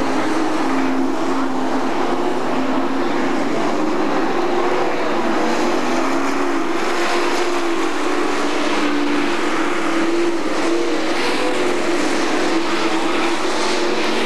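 A field of super stock race cars running laps on a dirt oval. Their engines make a continuous loud drone whose pitch rises and falls a little as cars come round and pass.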